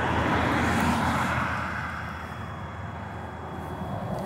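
Road traffic: a vehicle's tyre and engine noise fading away, then swelling again near the end as the next car approaches.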